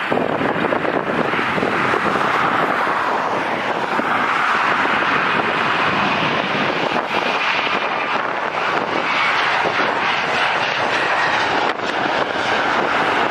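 Jet airliner's engines at takeoff thrust on the departure roll, a steady, loud noise with no distinct tones.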